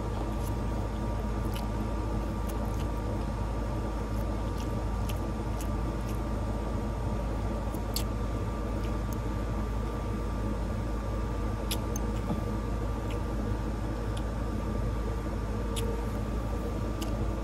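Air-conditioning unit running with a steady, even hum, a few faint steady tones riding on it. Faint scattered clicks and smacks of spaghetti being eaten close to the microphone come over it.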